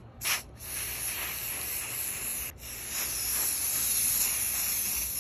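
Aerosol can of Rust-Oleum spray paint hissing as it sprays paint through a stencil: a short spurt, then a long spray with a brief break about two and a half seconds in.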